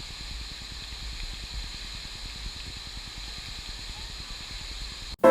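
Steady rushing water of a waterfall, an even hiss over a low rumble, cutting off abruptly near the end.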